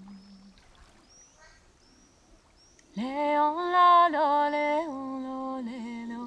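A few faint, high, bird-like chirps over quiet. About three seconds in, a voice starts a wordless sung tone: it slides up, holds long notes and wavers in pitch twice.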